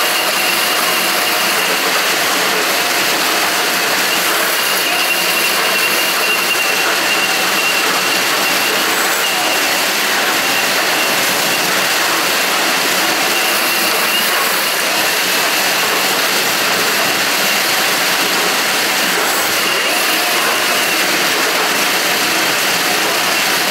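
Milwaukee M18 drain snake running steadily, turning a 7/8-inch cable as it is fed into a clogged sewer drain, with a steady high whine over the noise of the motor and cable.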